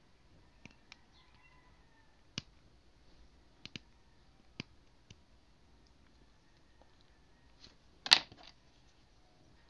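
Hobby knife blade cutting and scraping away excess plastic from a small plastic model kit part: a handful of scattered sharp clicks, with a louder clatter near the end.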